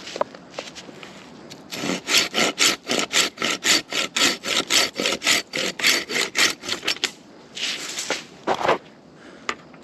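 Hand pruning saw cutting through a tree branch with quick, even strokes, about four or five a second, for roughly five seconds. The strokes stop, followed by a brief rustle and a single knock.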